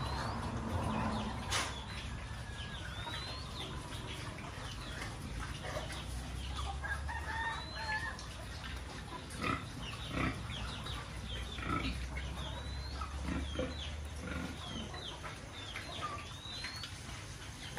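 Pigs feeding at concrete troughs: irregular chewing, slurping and snuffling, with a sharp knock about a second and a half in. Birds chirp and cluck in the background throughout.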